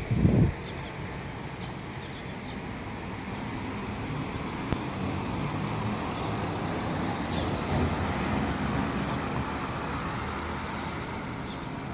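Road traffic: a passing vehicle's noise swells and eases, loudest about eight seconds in, with a brief low thump at the start.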